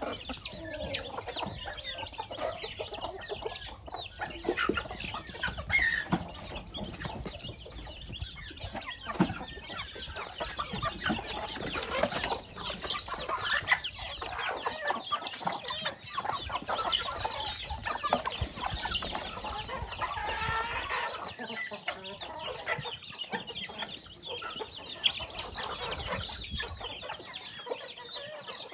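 A flock of chickens clucking, with chicks peeping among them, in many short overlapping calls throughout.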